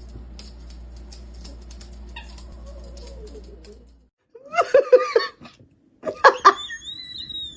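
Low steady hum with faint clicks for about four seconds, then after a short break a pet's loud, wavering yowling cries in two bursts, the second with a thin high gliding tone over it.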